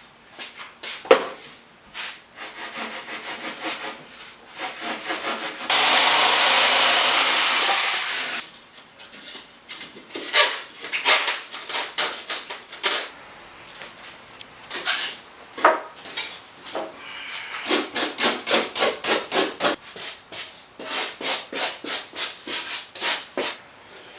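A hand tool rubbing and scraping back and forth on foam in repeated strokes, about two a second in the later runs, with a steadier hiss lasting about two seconds around six seconds in.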